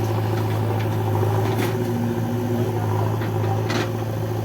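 Diesel engine running steadily with a deep, even hum, and a couple of short clatters about one and a half and three and a half seconds in.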